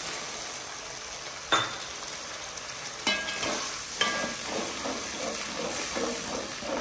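Sauce sizzling in a hot aluminium kadai as water goes in, then a perforated metal ladle stirring and scraping the pan, knocking sharply against it three times, the first about a second and a half in.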